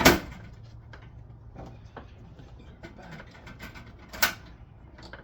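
Diesel heater case cover being fitted and its latches snapped shut: a sharp knock at the start, small clicks and rattles, then another sharp latch click about four seconds in.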